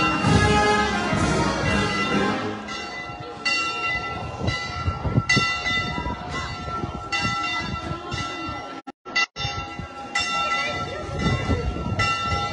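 Church bells ringing with strokes about once a second over crowd chatter, after band music fades out about two seconds in. The sound cuts out briefly near the end.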